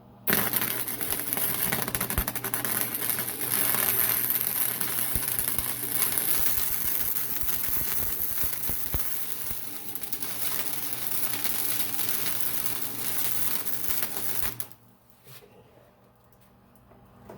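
Arc of an old Harbor Freight flux-core wire-feed welder crackling steadily as a weld is run on a steel tube joint. It starts abruptly and cuts off sharply a few seconds before the end.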